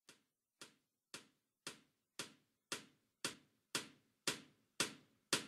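Footsteps, about two a second, each one a short sharp step, starting very faint and growing steadily louder.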